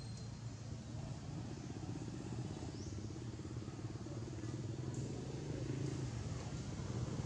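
A motor vehicle's engine running, a low steady hum that grows gradually louder, with a few faint high chirps over it.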